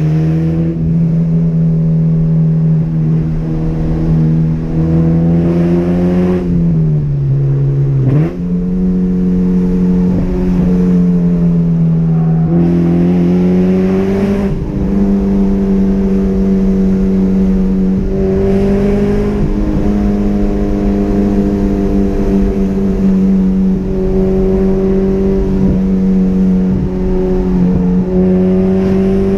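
2006 Honda Civic Si's 2.0-litre i-VTEC four-cylinder, fitted with a cold air intake, header and Skunk2 Megapower RR exhaust, running under load while driving, heard from inside the cabin. The engine note holds mostly steady with small rises and falls. It sags about six to eight seconds in, jumps sharply back up at about eight seconds, and steps up again near twelve seconds.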